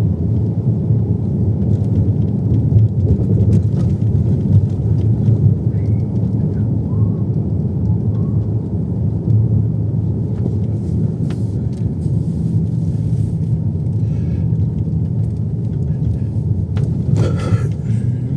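Steady low rumble of a car on the move, road and engine noise heard inside the cabin.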